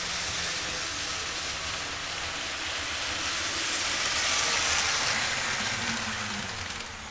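Model freight train pulled by CP Rail and Conrail diesel locomotives, running along the layout's track with a steady rolling rumble and rattle of motors and wheels. It grows louder as the train passes close, loudest about four to five seconds in, and fades away near the end.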